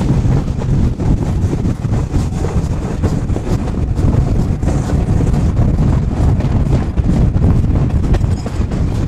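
Wind buffeting the microphone: a loud, uneven low rumble that does not let up.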